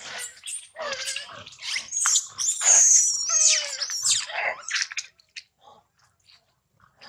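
Long-tailed macaque giving a run of high-pitched squealing cries whose pitch bends up and down. The cries are loudest in the middle and thin out to a few faint sounds after about five seconds.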